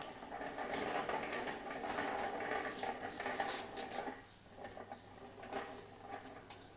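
Rustling with many small clicks and light clinks from hands handling things, busy for about four seconds, then sparser knocks.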